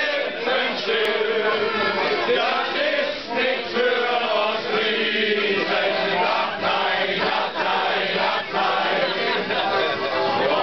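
A room full of people, mostly men, singing loudly together in chorus, a rowdy group sing-along.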